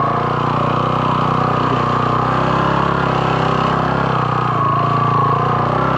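Motorcycle engine running steadily at an even pitch as the bike rides along.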